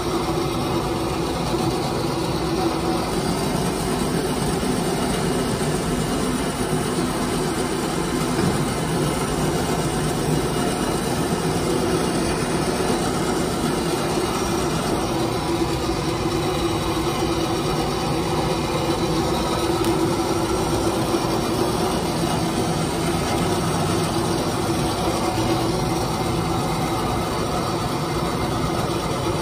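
Factory machinery running with a steady, even drone and hum that never pauses.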